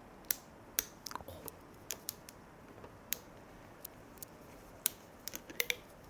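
Plastic screw cap of a makgeolli bottle being worked open: a dozen or more sharp, irregular clicks and crackles of plastic.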